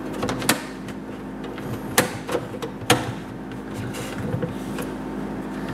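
Thin aluminum mesh being pressed and tucked into a plastic tractor grille by hand: light rattling and scraping, with three sharp clicks about half a second, two seconds and three seconds in.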